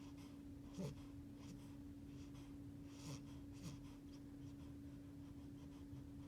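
Eight-week-old beagle puppy making little snores in its sleep: three short, soft snuffly breaths, about a second in and twice more around three seconds in, over a steady faint hum.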